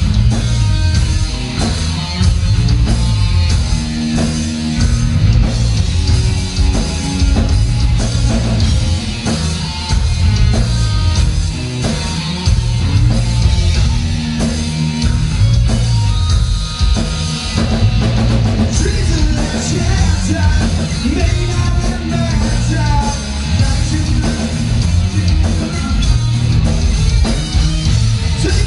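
Live rock band playing a heavy metal song: distorted electric guitar, bass guitar and a drum kit, loud and dense throughout.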